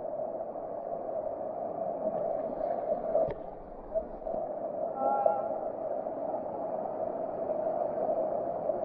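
Steady rush of river water flowing over rocks, with a faint knock a little after three seconds in.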